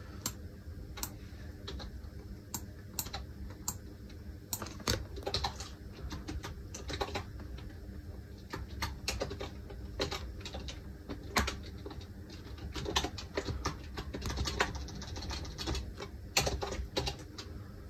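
Typing on a computer keyboard: irregular keystroke clicks, a few a second, with short pauses between bursts.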